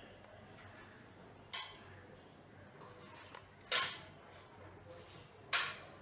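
Three short, sharp clicks about two seconds apart, the last two the loudest, over a faint steady background.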